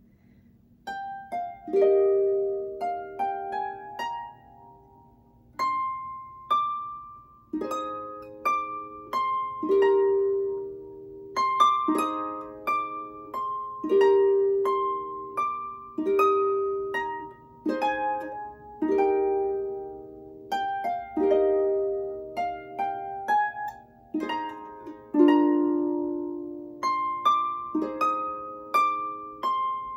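Lever harp plucked by hand, playing a slow Christmas carol: a melody of single ringing notes over repeated lower chords, starting about a second in.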